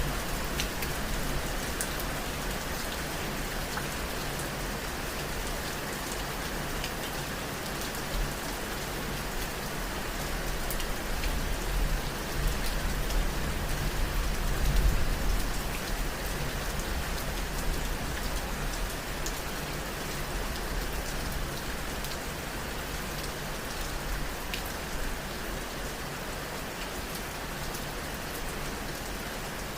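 Steady rain falling, with scattered sharper drops and a low rumble that swells and fades about halfway through.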